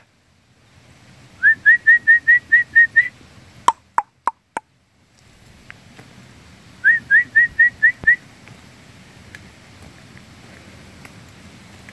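A person whistling to call a dog back: quick runs of short rising whistles, about five a second, one run about a second and a half in and another near seven seconds, with a few short falling whistles in between.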